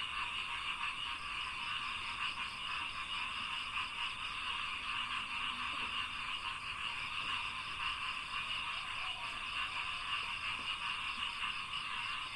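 Dense, unbroken chorus of frogs calling in a rice paddy, many rapid pulsing calls overlapping into a steady wall of sound.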